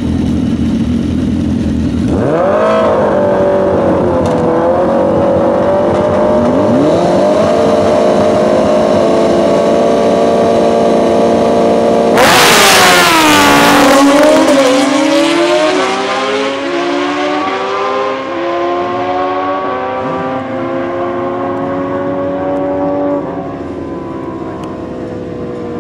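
Two drag-racing sport bikes, a Suzuki Hayabusa and a BMW S1000RR with an aftermarket Brocks exhaust, both inline-fours, run on motor only with no nitrous. The engines idle, then rev up about two seconds in and hold high revs at the start line. About halfway through comes the loud launch blast. The engine pitch then climbs through several upshifts and fades as the bikes pull away.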